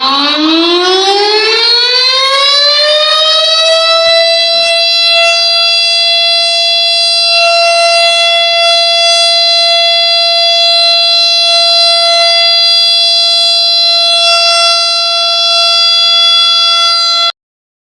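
Civil defense warning siren winding up from a low pitch to a high, steady wail over about three seconds, then holding that tone until it cuts off abruptly near the end. It sounds as an emergency warning.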